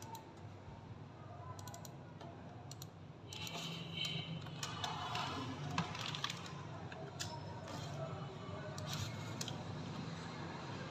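Scattered computer mouse and keyboard clicks over a steady low hum. The background noise grows louder about three seconds in.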